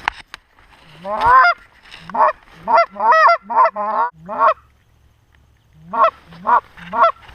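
Canada goose honking: a loud run of rising honks about two a second, a pause of about a second, then another run of honks near the end.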